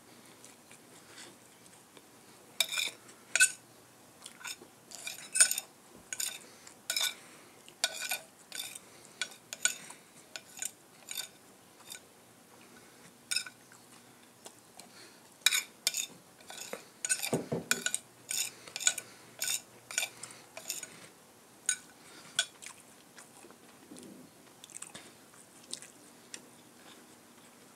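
Spoon and fork clinking and scraping against a plate while eating, in many irregular sharp taps, busiest through the middle stretch.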